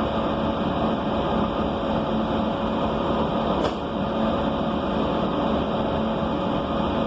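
Steady hum inside a city bus, its engine and ventilation running with a constant tone, and one short click about three and a half seconds in.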